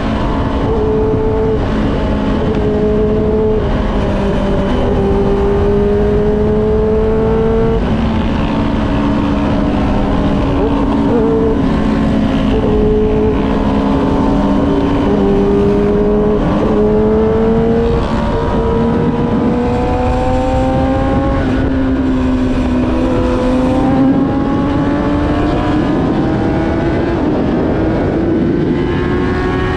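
Sport motorcycle engine heard from on board while riding at road speed, with wind noise underneath. The engine note climbs slowly in pitch and drops back at several gear changes.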